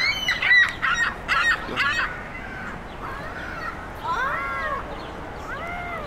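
Gulls calling: a rapid series of loud squawks in the first two seconds, then two longer, drawn-out cries, one about four seconds in and one near the end.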